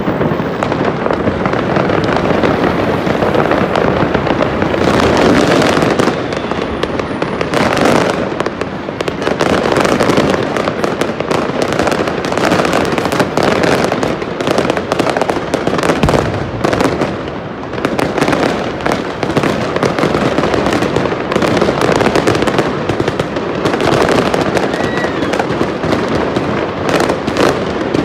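Many fireworks and firecrackers going off at once, a constant dense crackle of overlapping bangs with no pause.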